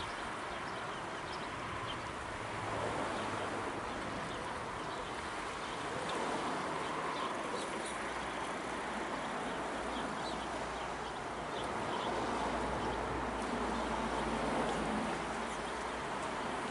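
Shoreline ambience: a steady rush of wind and water, with a faint low hum underneath and scattered faint short high chirps.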